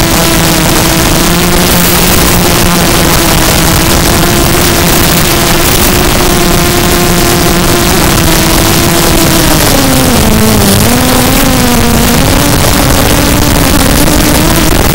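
Zabo 250 quadcopter's motors and 5x4 carbon fiber props whining steadily under a loud hiss, heard from on board the aircraft. The pitch drops about ten seconds in and then climbs back up.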